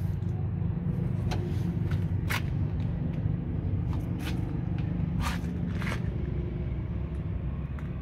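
Steady low engine drone, with a few brief scrapes and clicks over it.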